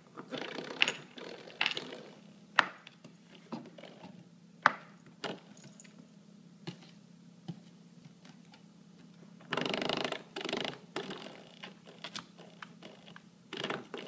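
Spring door stopper being twanged and rattled by a puppy biting and pawing at it: a run of sharp snapping clicks, with longer rattling, scrabbling stretches about two-thirds of the way through.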